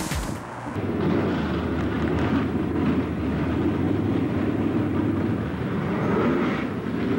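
Intro music cuts off a moment in, giving way to a steady low rumble of drag-racing car engines running.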